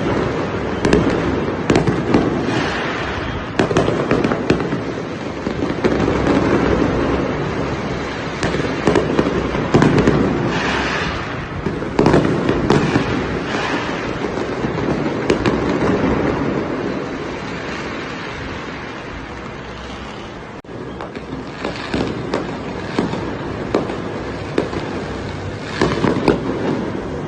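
Fireworks display: a dense run of bangs and crackling bursts over a continuous rumble, easing off about two-thirds of the way through before a fresh cluster of bangs near the end.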